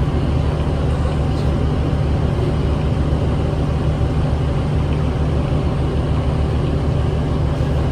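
Steady low drone inside a New Flyer D40LF city bus: its Cummins ISL 8.9-litre six-cylinder diesel running, mixed with road rumble as the bus travels.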